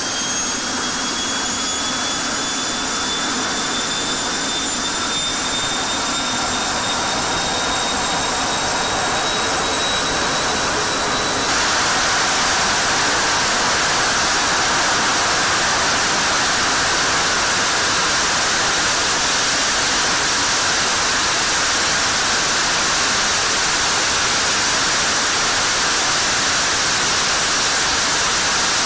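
F-16 jet engine running on a test stand in a hush house: a dense roar with a whine that slowly rises in pitch. About twelve seconds in, the whine drops away and the sound steps up into a louder, steady roar, with the engine at full afterburner by the end.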